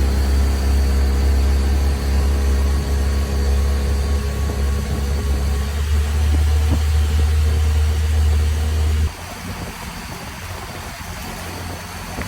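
Motorboat engine running at a steady low hum, stopping abruptly about nine seconds in and leaving a quieter rushing noise.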